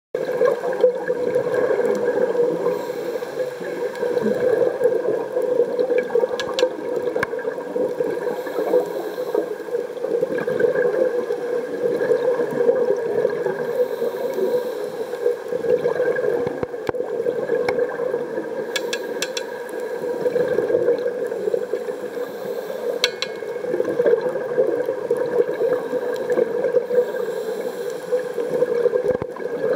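Muffled underwater sound heard through a camera housing: a steady gurgling and bubbling of a scuba diver's exhaled air, with a few faint clicks.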